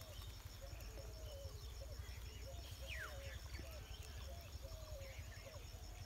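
Animal calls outdoors: a short, low call repeating about twice a second, with scattered higher bird chirps and one falling whistle about three seconds in, over a low rumble.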